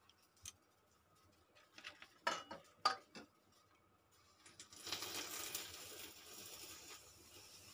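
Quiet handling of a steel mixing bowl: a few light clinks in the first three seconds, then a soft continuous rustle from about five seconds in as raw hilsa fish pieces are laid into mustard masala paste.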